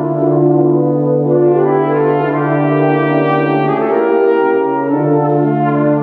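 Tuba and euphonium ensemble playing held chords, the parts moving to new notes every second or so. The lowest bass note drops out about four seconds in and comes back about a second later.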